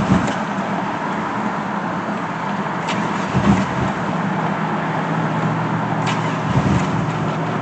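Chevy Blazer ZR2's 4.3-litre V6 cranking steadily on the starter without catching: a no-start from too little fuel reaching the engine, with air still in the fuel line after the fuel-pump repair.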